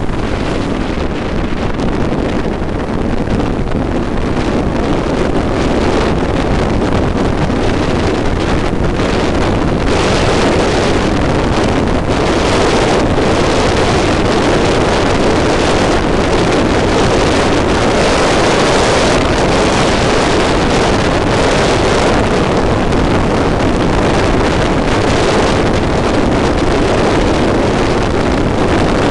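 Onboard sound of a Formula Monza 875 single-seater's engine running hard at speed, mixed with heavy wind buffeting on the microphone; it steadies at full loudness after the first few seconds.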